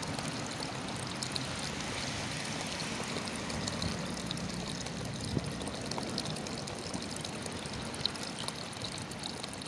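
Running water flowing steadily, trickling with small splashes.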